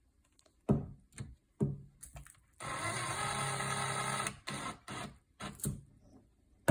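Cordless drill driving a screw into the keypad's cover: a steady motor whine for about two seconds in the middle, with clicks and knocks of the screw and parts being handled before and after.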